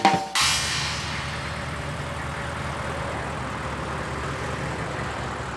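Cartoon tow truck's engine sound effect, running steadily as the truck drives off. It starts with a brief louder rush and settles into an even drone.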